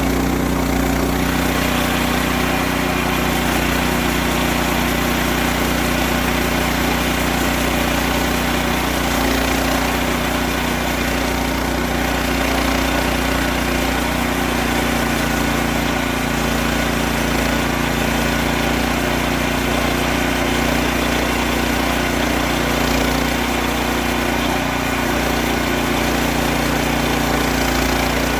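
Gas engine of a Woodland Mills portable band sawmill running steadily at a constant pitch while sawing white oak.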